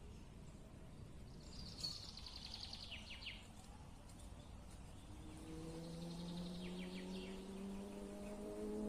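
A songbird singing two trilled phrases that fall in pitch, a few seconds apart, over a low outdoor rumble. From about halfway a low steady hum sets in and slowly rises in pitch.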